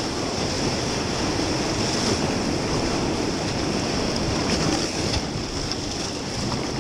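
Whitewater of a river in flood rushing steadily around a raft, an even, unbroken noise of churning water.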